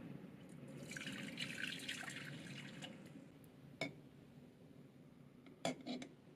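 Hot water poured from a metal bowl into a stainless steel saucepan, splashing for about three seconds. Then eggs are set into the pot, each knocking against the metal with a sharp click, once about four seconds in and twice more near the end.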